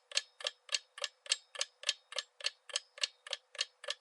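Clock-tick sound effect counting down the answer time of a quiz question, ticking evenly about three and a half times a second.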